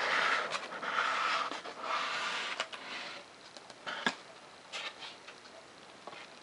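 Foam board parts being handled and rubbed together while a hot glue gun runs a bead along their joints. There are rustling, scratchy noises for the first few seconds, then a few sharp clicks around the middle.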